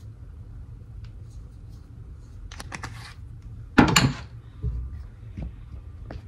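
Kitchen handling noises: a few light clicks, then a sharp clatter about four seconds in, the loudest sound, followed by a low thump and more small clicks, over a steady low hum.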